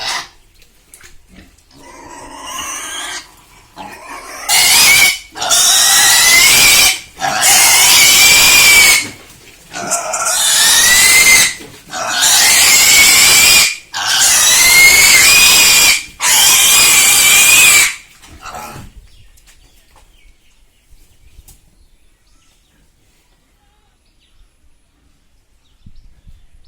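A pig squealing: a few quieter grunts, then six long, very loud, high squeals in a row with short breaths between them, stopping about two-thirds of the way through.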